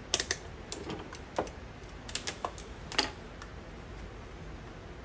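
Light clicks and taps of hands handling a plastic jump starter pack, about a dozen in quick, uneven clusters over the first three and a half seconds, then stopping.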